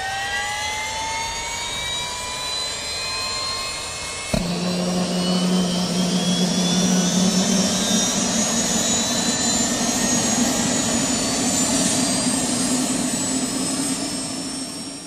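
Turbine engine sound effect: a high whine that rises and levels off, then, about four seconds in, a sudden cut to a louder steady running sound with a low hum under it, fading out at the end.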